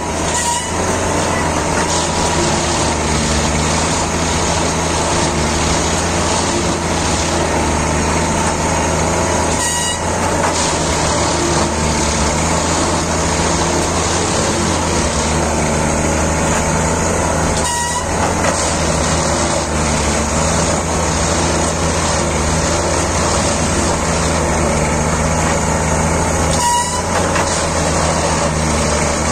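Plasser & Theurer Unimat 08-275 track tamping machine at work, its engine and hydraulics running steadily. A brief toot sounds four times, about every eight to nine seconds.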